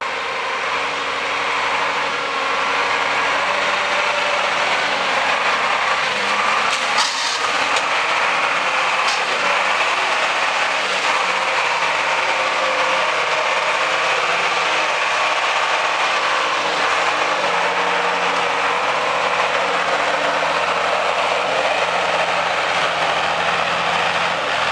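GAZ-66 off-road truck on wide low-pressure arch tyres, its engine working under load as it drives through mud, the pitch rising and falling with the throttle.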